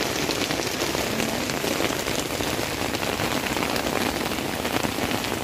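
Steady rain falling on a tent, heard from inside: a dense, even hiss of many small drop ticks.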